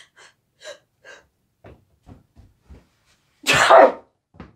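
A woman sneezing: a few short catching breaths, then one loud sneeze about three and a half seconds in.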